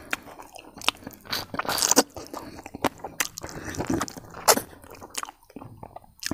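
Close-miked chewing of a mouthful of braised buffalo leg meat and rice: irregular sharp mouth clicks and crunches, with a quieter spell near the end.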